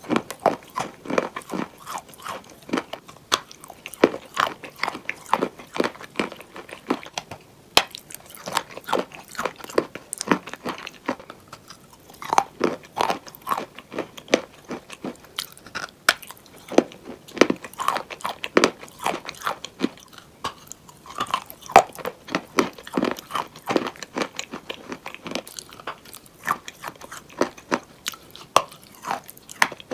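Pressed chalk bowls being crunched and crumbled, a dense run of crisp, irregular crunches and cracks several a second, with brief lulls.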